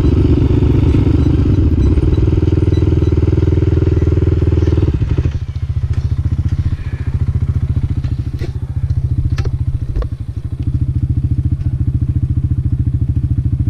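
Sport quad (ATV) engine running loud under throttle, then dropping back to a steady idle about five seconds in. A few sharp clicks or knocks come during the idle.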